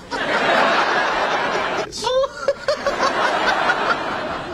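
Sitcom studio audience laughing, with a break about two seconds in. A man then laughs briefly in a few short syllables over the audience laughter.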